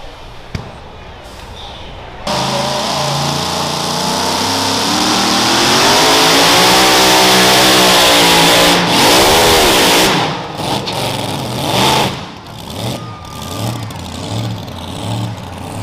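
Supercharged engine of a modified pulling tractor at full throttle under load. The note climbs and is held for several seconds, wavers, then drops off about ten seconds in to a lower, lumpy running note.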